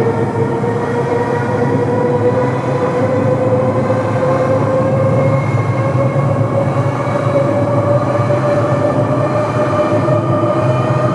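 A Shinano Railway 115-series electric train running past at close range: a loud rail rumble with a steady whine that rises slowly in pitch as the train picks up speed.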